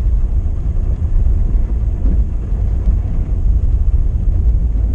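Steady low rumble of a car driving on a snow-covered road: engine and tyre noise.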